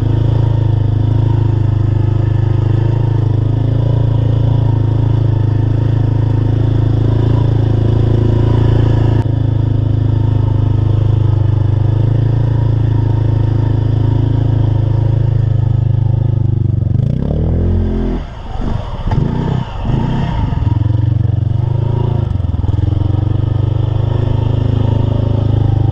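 Mud-racing truck engine running loud and steady, then revved up and down several times about two-thirds of the way through.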